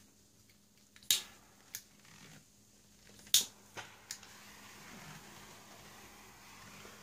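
Small handheld torch being handled and lit: a few sharp separate clicks as it is fitted together and its igniter is worked, then a faint steady hiss from about four seconds in as it burns.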